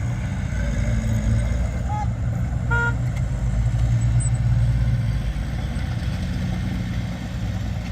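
Heavy diesel earthmoving machinery running steadily with a deep rumble that swells briefly near the middle, and a short horn toot about three seconds in.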